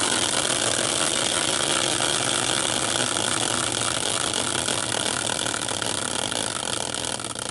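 A caster wheel spun by hand, whirring steadily on its axle; near the end, as it slows, the whir starts to break into fast ticks.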